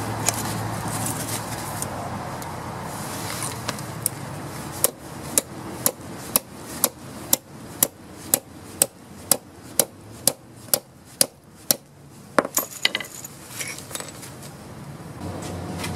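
A run of sharp, evenly spaced taps or knocks, about two a second for some seven seconds, then a quick cluster of a few more.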